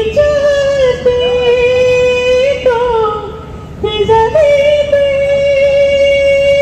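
A woman singing two long held high notes, the first breaking off about four seconds in and the second falling away near the end.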